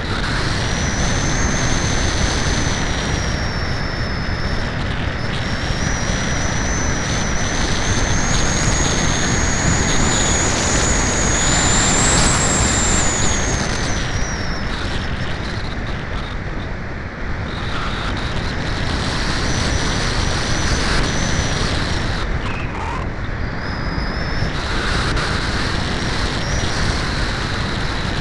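Wind rushing over the tiny microphone of a keychain camera riding on an FPV Cularis RC glider in flight, a loud, steady roar of airflow. A thin high whine runs over it, slowly rising in pitch until about halfway, then falling away, dropping out for a few seconds, and returning lower.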